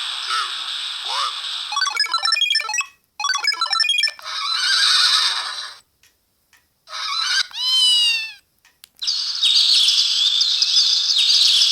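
Samsung SGH E300 mobile phone playing its built-in ringtones and sound effects one after another through its small speaker. Each plays only a second or two before the next, with short silences between. Runs of quick beeping notes give way to a hissing sound, then sweeping rising and falling chirps, then a dense busy tone.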